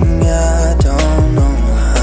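Background music with a steady beat, deep bass and held chords.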